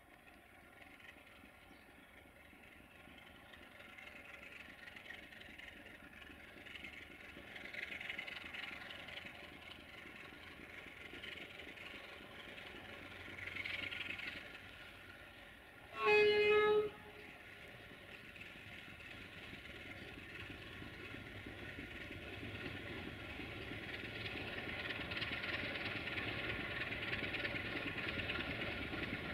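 CFR class 060-DA (LDE2100) diesel-electric locomotive hauling a string of tank wagons, its Sulzer diesel engine running and growing steadily louder as it approaches. One short horn blast sounds about 16 seconds in.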